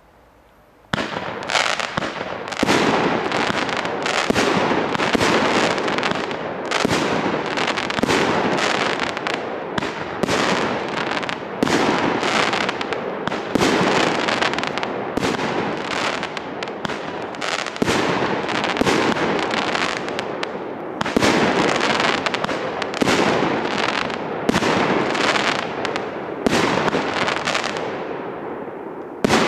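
A 19-shot 30 mm fireworks cake firing: launch thumps and aerial bursts follow one another, with the crackle of glittering stars between them. It starts about a second in and dies away near the end.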